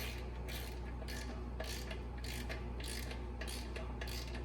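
Hand ratchet clicking in short back-and-forth strokes, about two a second, while tightening clutch bolts down evenly. A low steady hum sits underneath.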